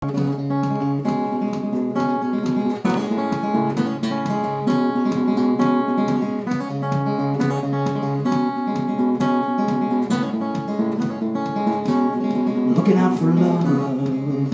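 Solo steel-string acoustic guitar, picked and strummed in a steady rhythm through a repeating chord pattern.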